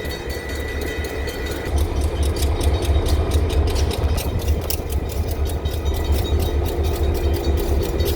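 EMD diesel freight locomotives idling at a standstill: a steady low rumble that gets louder about two seconds in.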